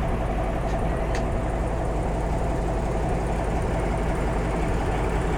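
Class 14 diesel locomotive's engine running steadily, a constant drone with a held mid-pitched tone.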